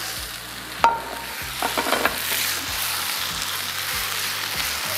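Thinly sliced beef and its juices sizzling in a pan of green chili sambal while being stirred with a wooden spatula. There is a sharp knock with a short ring about a second in, then the sizzle swells into a steady hiss.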